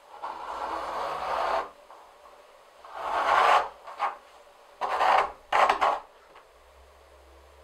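Knife blade drawn through a leather hide along a steel ruler, a rasping slice repeated in four strokes: a long first cut of about a second and a half, then three shorter ones, the last two close together.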